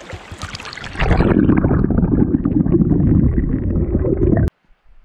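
Small mountain creek babbling over stones; about a second in, the sound turns much louder and muffled, the rush and gurgle of the current heard from under the water. It cuts off suddenly near the end.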